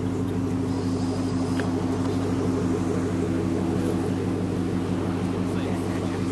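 Car engine idling steadily: an even low hum with no revving.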